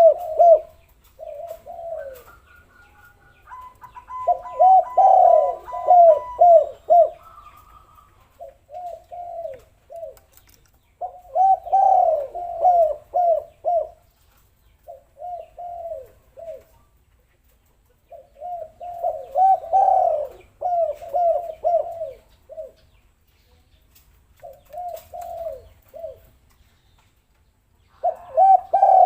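Spotted doves cooing in repeated phrases of short, throaty notes, a phrase every few seconds, as used for a lure call. A thin steady higher tone sounds alongside them for a few seconds, about four seconds in.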